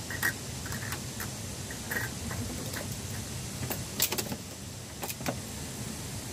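Pliers working a wire hinge on a wooden chicken-coop door: a few sharp metallic clicks, then louder knocks of wood as the plank door swings on its wire, the loudest about four seconds in.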